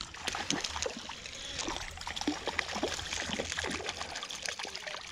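Small, quick splashes and trickling water at the surface, as a hooked stocked trout thrashes while being reeled in.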